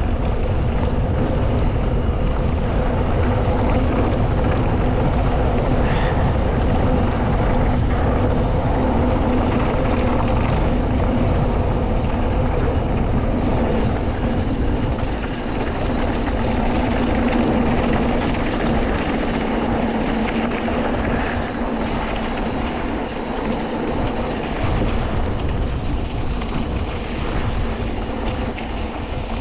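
Mountain bike rolling fast down a gravel trail: knobby tyres rumbling over gravel and dirt, with wind buffeting the microphone and a steady hum. It eases off slightly in the last few seconds.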